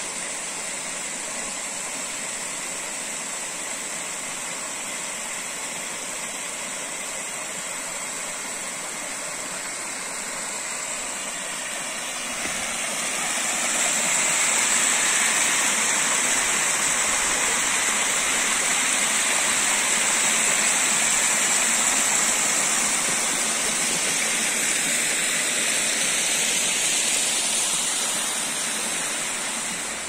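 Small mountain river rushing in a cascade over rock ledges into pools, a steady rush of water. It grows louder about halfway through and eases near the end.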